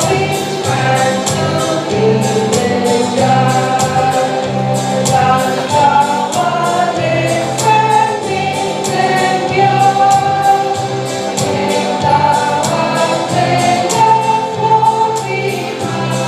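Church choir, women's voices, singing a hymn over a steady percussion beat and a bass line.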